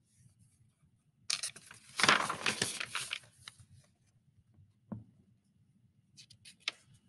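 Paper pages of a picture book being turned and handled: a rustle lasting about two seconds, a single soft knock about five seconds in, then a few light crackles near the end.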